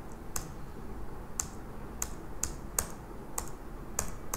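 About seven separate sharp clicks from a computer keyboard or mouse, spaced irregularly about half a second apart.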